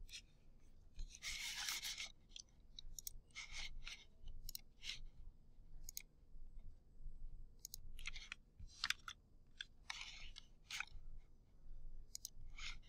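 Faint, scattered clicks and taps from a computer's mouse and keyboard, with a few longer rustles: about a second in, and again near eight and ten seconds.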